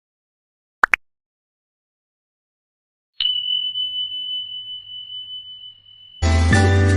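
Two quick rising chirps, then a single bell ding that rings out steadily for about three seconds. Background music with a beat starts near the end.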